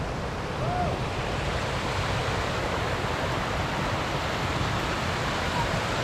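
Mountain stream rushing over rocks: a steady, even noise of running water.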